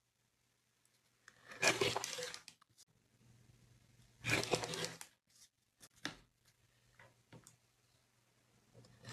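Rotary cutter slicing through layered cotton patchwork along an acrylic ruler on a cutting mat: two short cuts about two and a half seconds apart, with a few small clicks and taps between them.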